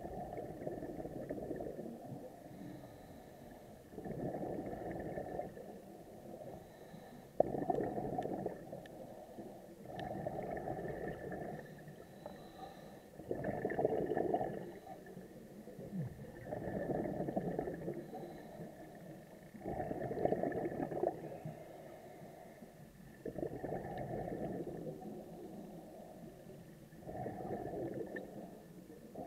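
Scuba diver breathing through a regulator underwater: a bubbling rush of exhaled air comes in bursts about every three and a half seconds, muffled through the camera's underwater housing.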